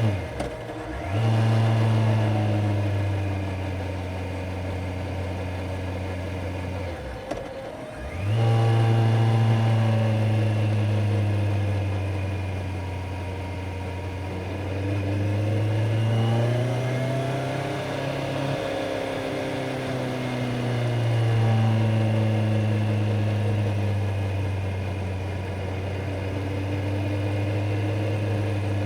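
Kawasaki Z900's inline-four engine and exhaust under way on the road. The revs drop off briefly near the start and again about seven to eight seconds in, as at gear changes or closing the throttle, and pick up each time. The engine note then rises and falls gently.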